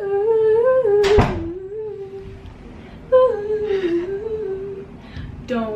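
A woman humming a wordless tune in long, slowly gliding notes, in two phrases with a short break between them. A single sharp knock comes about a second in.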